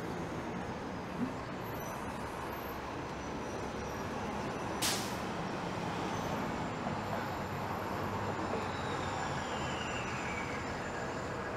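Steady city street traffic with buses passing, and one short, sharp hiss of bus air brakes about five seconds in. A whine falls slowly in pitch near the end.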